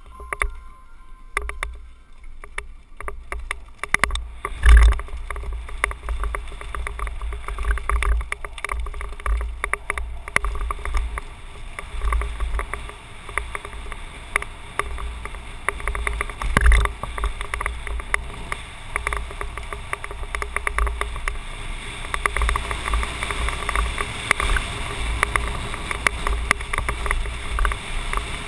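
Downhill mountain bike rolling fast over a loose gravel and dirt road: knobby tyres crunching on stones and the bike rattling over bumps, under a low rumble of wind on a helmet-mounted camera. It is quieter for the first few seconds, then gets busier, with a hard knock about five seconds in and another just before seventeen seconds.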